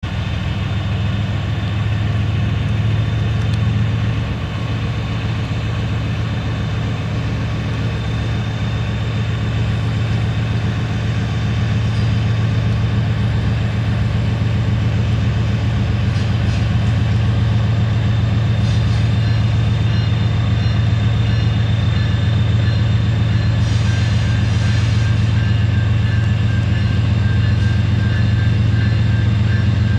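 Diesel locomotives leading a loaded coal train, a Union Pacific GE ES44AH ahead of BNSF EMD SD70ACe and SD70MAC units, running with a steady low engine drone as they approach slowly. The drone grows slightly louder as they come closer.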